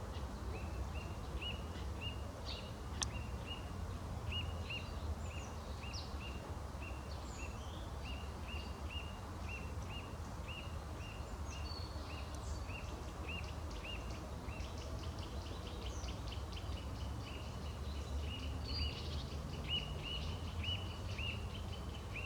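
Wild songbirds calling: one bird repeats a short, high note about twice a second, while others add scattered higher chirps. A steady low rumble runs underneath.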